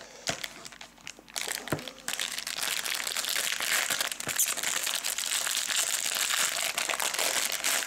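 Foil trading-card pack wrapper crinkling as it is handled and opened: a few light crackles at first, then steady, dense crinkling from about a second and a half in.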